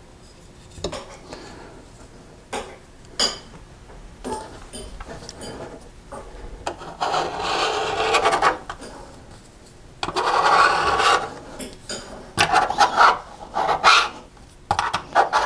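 Scraping and rubbing around a stainless sink drain flange as squeezed-out plumber's putty is worked away from its rim, in several scratchy bursts a second or two long, after a few light clicks and taps.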